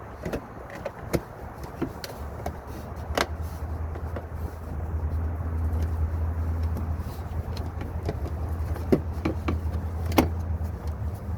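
Sharp clicks and knocks of the rigid plastic wheel-well liner being handled and pushed into place, scattered irregularly with the loudest about three seconds in and near the end. A steady low hum runs underneath, growing louder about two seconds in.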